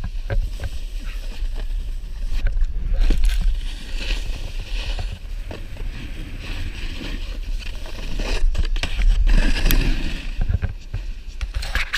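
Wind buffeting the action camera's microphone, with a low rumble, while a snowboard scrapes and slides over the snow; the hiss swells a couple of times and there are a few light knocks.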